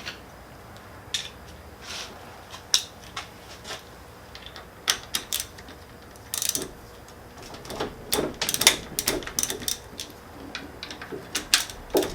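Socket wrench on the engine's cam gear bolts as they are cracked loose: irregular metallic ratchet clicks and tool clinks, sparse at first and busier in the second half.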